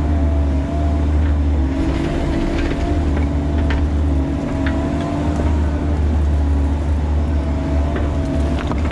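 Bobcat E45 mini excavator's diesel engine running steadily under load from the cab, with a hydraulic whine that wavers in pitch as the boom and bucket move. A few sharp clicks and scrapes of rock in the bucket.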